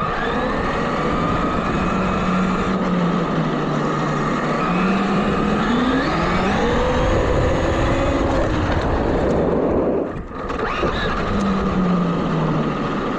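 RC car's motor running under a steady rushing noise, its pitch rising and falling as it speeds up and slows, with a brief drop about ten seconds in.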